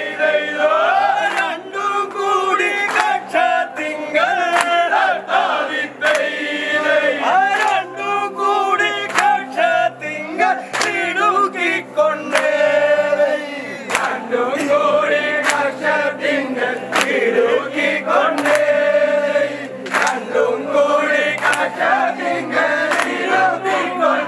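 A crowd of men singing vanchipattu, the Kerala boat song, loudly together in chorus, with sharp claps or beats keeping time throughout.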